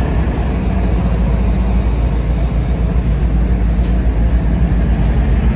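A Canadian Pacific GE ES44AC diesel locomotive passing close by with a deep, steady rumble. Its engine hum fades about four seconds in as the first autorack car rolls past.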